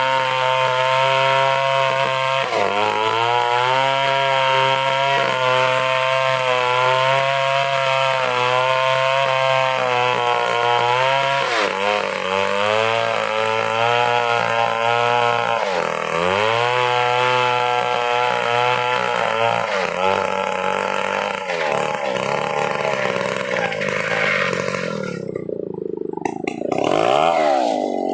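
Stihl chainsaw running near full throttle while ripping a plank from an angsana log. The engine pitch sags under load several times and recovers each time. Near the end it drops off, then revs up briefly.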